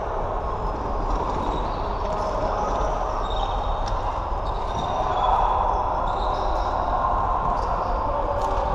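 Floorball being played on an indoor court: short high shoe squeaks, footsteps, and a few clicks of sticks and ball over a steady hall hum.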